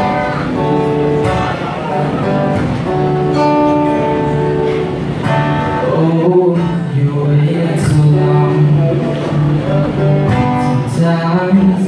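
Acoustic guitar being strummed and picked, with chords ringing on.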